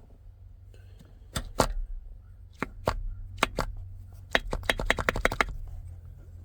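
Nissan 350Z short shifter being run through the gears: a series of sharp clicks and clunks as the lever moves between the gates, with a quick run of clicks from about four seconds in. The assembly is freshly greased with its bolts tightened, and there is no rattle.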